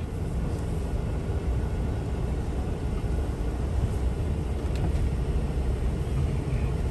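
Steady low rumble of road and engine noise inside a moving truck's cabin.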